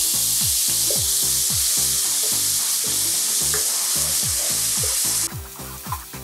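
Crushed ginger and garlic sizzling in hot coconut oil as they are stirred with a wooden spatula. The sizzle drops off sharply about five seconds in. Background music with a steady beat plays underneath.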